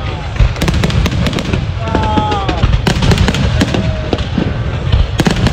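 A fireworks display at close range: dense, irregular cracking and banging of bursting shells over a continuous low rumble.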